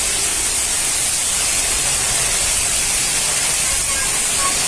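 Heavy rain pouring steadily in strong wind: a loud, even hiss.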